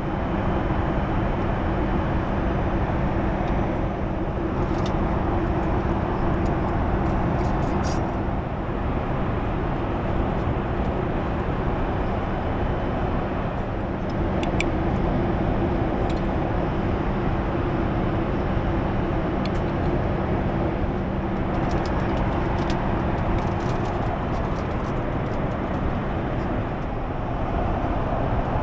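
Steady cabin noise inside a Boeing 737 MAX: an even rush of engine and airflow noise with a constant low hum, and a few faint clicks.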